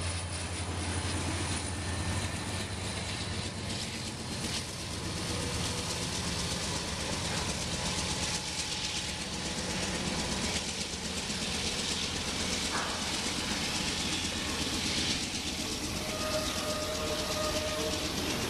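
Norfolk Southern freight train passing close by: the low drone of the diesel locomotives NS 6647 (EMD SD60) and NS 9464 (GE C44-9W) dies away in the first few seconds. After that comes the steady rumble and clickety-clack of the autorack cars rolling past.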